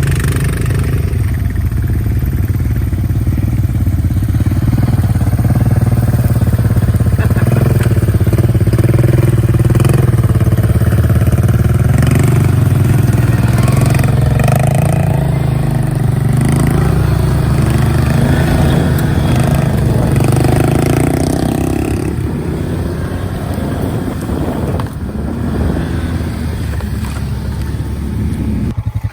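An ATV engine running steadily under load, getting louder through the first several seconds, then easing off about three-quarters of the way through.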